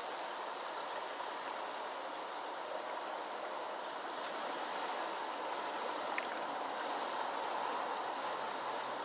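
Steady rush of a flooded creek's running water, with a faint click about six seconds in.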